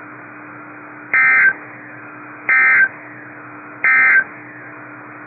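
Emergency Alert System end-of-message code on NOAA Weather Radio: three short bursts of shrill data tones about 1.3 s apart, over a faint steady hum and radio hiss. The three bursts mark the end of the alert message.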